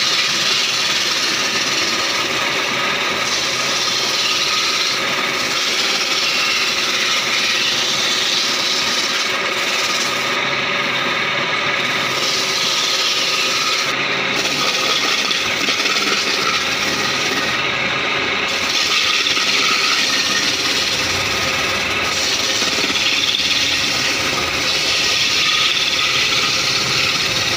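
Wood lathe turning a wooden leg blank while a hand-held turning chisel cuts into the spinning wood: a continuous scraping of shavings being peeled off over the hum of the lathe. The cutting eases briefly a few times in the middle.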